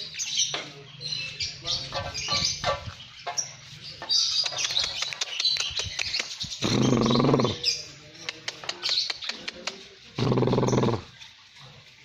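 Lovebirds chirping and twittering in quick, high-pitched notes. Two loud buzzing sounds, each about a second long, cut across them, one about halfway through and one near the end.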